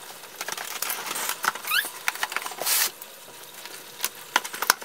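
Scissors cutting through packing tape on a cardboard box: irregular scraping and clicks, with a short rasping tear a little under three seconds in.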